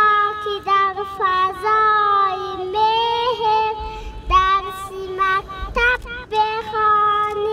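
A young girl singing solo and unaccompanied into a handheld microphone, with long held notes and short breaths between phrases.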